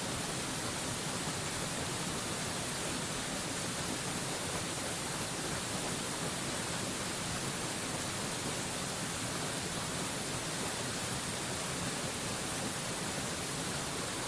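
Waterfall rushing steadily: an even, hiss-like water noise that never changes, strongest in its high, bright part.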